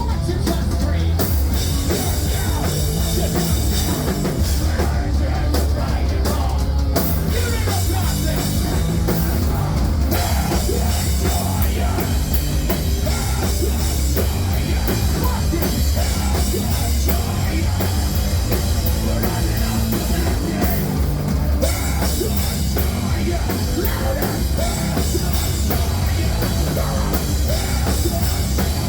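A hardcore punk band playing live: distorted electric guitars, bass and drums, loud and dense without a break.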